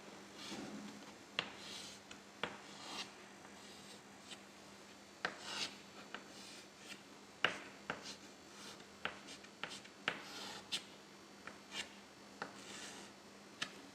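Faint handwriting: short scratching strokes with sharp taps between them, irregularly spaced, as characters are written out.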